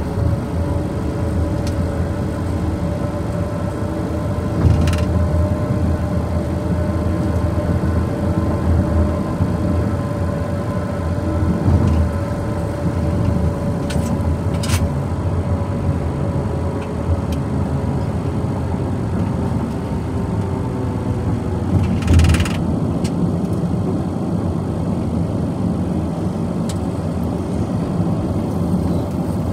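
Car interior noise while driving at road speed: a steady low drone of engine and tyres, with a faint steady hum that fades out past the middle. A few brief clicks or knocks come through, the longest a little past two-thirds of the way in.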